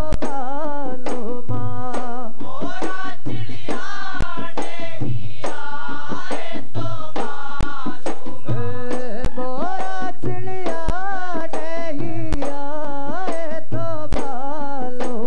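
Boduberu music: a row of Maldivian boduberu drums beaten by hand in a steady beat, with a lead singer singing a melodic line over them.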